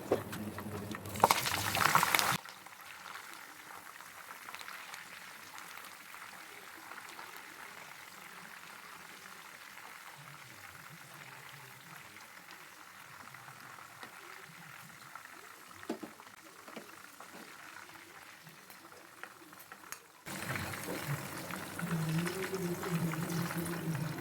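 Food frying in hot oil with a steady sizzle. The sizzle is louder and crackling for about the first two seconds and again for the last four, and both louder stretches cut in and out abruptly.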